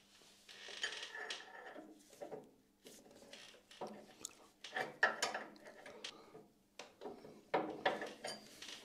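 Scattered light metal clicks, knocks and rubbing from the lathe's spindle-brake linkage, a cast-iron arm on its pin, being worked by hand; the louder knocks come about halfway through and near the end.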